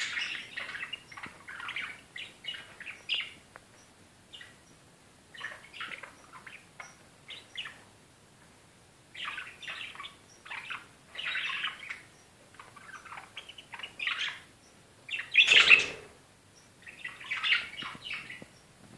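Budgerigars chattering and chirping in short bouts with brief pauses. There is one louder burst about three-quarters of the way through.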